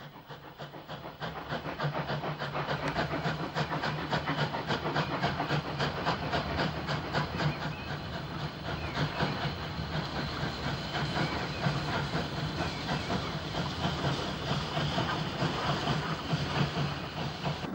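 Steam-hauled express train passing: a rapid, even clatter of wheels over rail joints with a hiss of steam, building over the first couple of seconds and then holding steady as the coaches run by.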